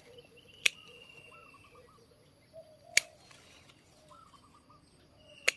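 Birds chirping faintly in short quick runs of notes, with a thin steady high whistle behind them. Three sharp clicks cut through, about two and a half seconds apart.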